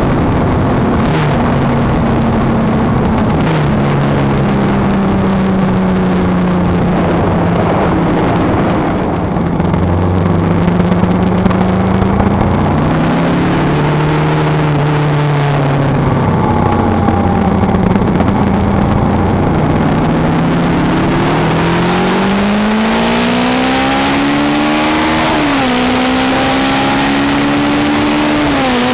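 Kawasaki ER-5's parallel-twin engine riding along, with wind noise over the microphone. The engine note eases off and rises and falls again around the middle, then climbs steadily in the last several seconds, dropping sharply twice as it shifts up through the gears.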